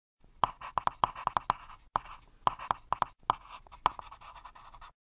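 Pen writing on paper: a run of quick scratchy strokes broken by sharp taps, which stops just before the end.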